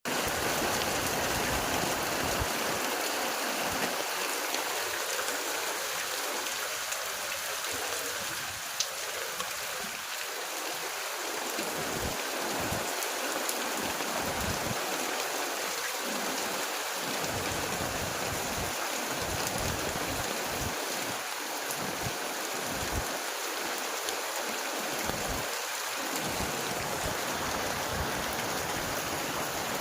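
Steady rain falling, an even hiss, with low rumbles coming and going underneath and a single sharp click about nine seconds in.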